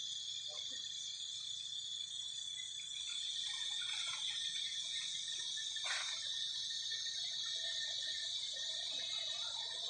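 Insect chorus droning steadily at a high pitch, with one short sharp sound about six seconds in.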